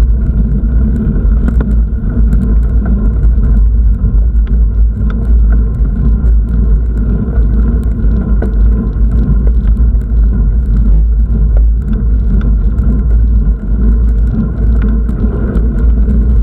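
A steady, loud low rumble.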